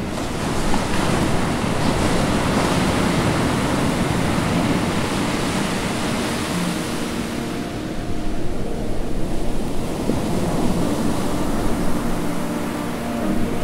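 Steady rushing sea surf and wind, swelling and easing slowly, with faint held tones coming in about halfway through.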